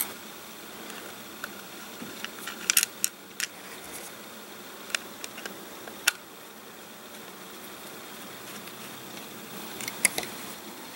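Light clicks and taps of small screws, a screwdriver and the plastic holster being handled as the holster is screwed onto its drop-offset mount. There is a cluster of clicks about three seconds in and a few more near the end, over a faint steady hiss.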